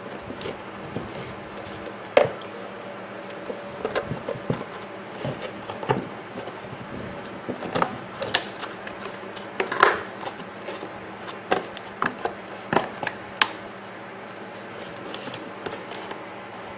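Irregular clicks and knocks of hard plastic coffee-maker parts being unscrewed, pulled apart and handled, with sharper knocks about two seconds in and again near ten seconds.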